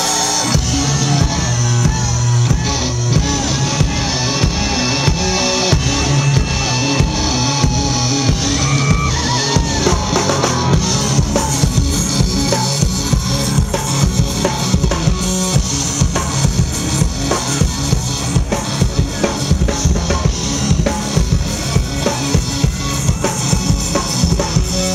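Rock band playing live, an instrumental passage: fast, driving drum kit with heavy bass drum and guitar.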